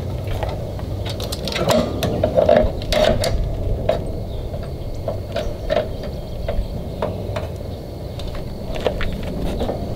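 Irregular metallic clinks and clicks of hand tools and parts being worked on a Kohler engine, over a steady low background noise.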